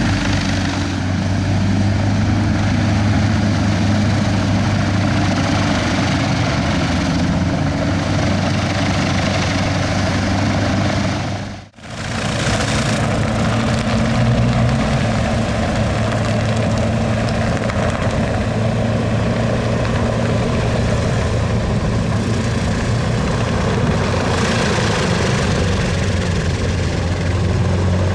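Single-engine hovercraft running steadily, its engine, lift fan and twin propellers making a continuous noise with a strong low hum. The sound cuts out briefly about twelve seconds in, then comes back at the same level.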